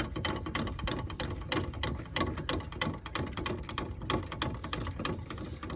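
A caravan jockey wheel being wound up by its crank handle, its screw mechanism clicking and rattling rapidly as it turns. The wheel is wound onto a support to take the play out of the shaft.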